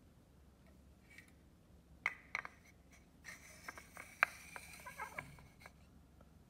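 Small wooden dollhouse furniture handled and set down on a hard stone floor: a few light knocks about two seconds in, then a stretch of scuffing and tapping with one sharper knock in the middle.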